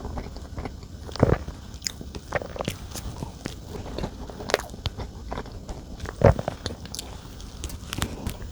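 A person chewing and biting into chocolate dessert close to the microphone: irregular wet mouth sounds and soft crunches, with a louder bite about a second in and another past six seconds.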